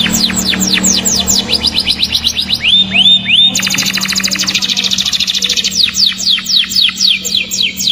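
Domestic canary singing: fast trills of quick descending whistled notes, several a second, broken about three seconds in by three slower arched whistles, then rapid trills again.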